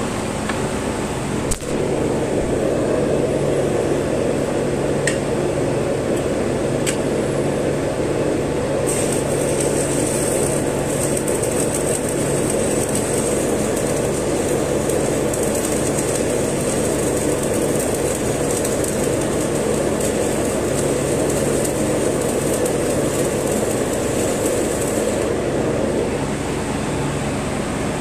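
Stick-welding arc burning with a steady crackle, struck with a click about two seconds in and broken off about two seconds before the end. A low steady hum runs underneath.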